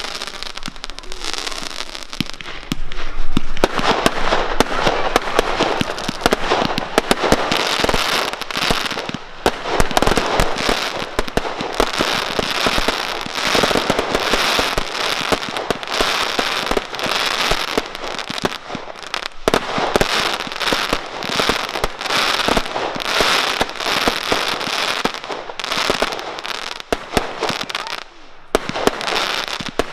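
Aerial fireworks display: a steady barrage of bangs and crackling, growing denser and louder about three and a half seconds in, with brief lulls near the middle and near the end.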